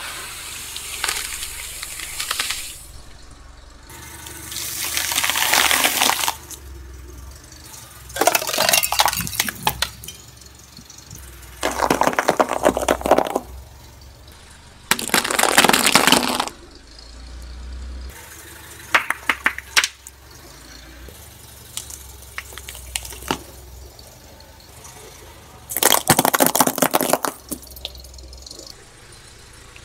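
A car tyre rolling slowly over objects on concrete and crushing them one after another: a floral-foam block stuck with cotton swabs, sugar cubes and small plastic toys. About six separate bursts of crunching and cracking, each a second or two long, with quieter gaps between.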